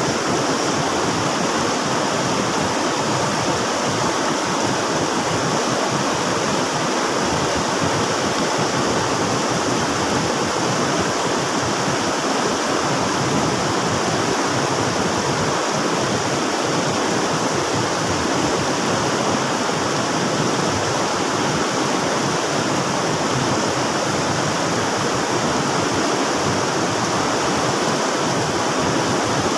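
River water rushing and splashing in a steady, unbroken roar.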